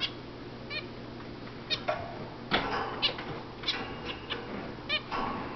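Zebra finches calling: short nasal beeping calls, about ten in a few seconds, some coming close together in pairs.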